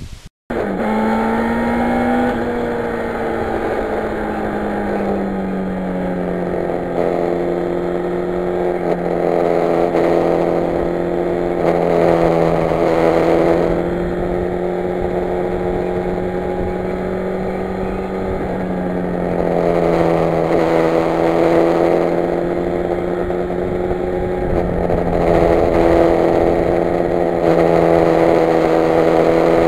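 1991 Yamaha FZR1000's inline-four engine running at a steady cruise on the road, its note shifting in pitch a few times as the throttle and gears change.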